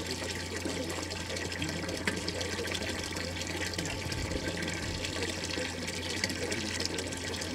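Water pumped through a hybrid PV-thermal solar panel's cooling circuit, running and splashing steadily, with a steady low hum underneath.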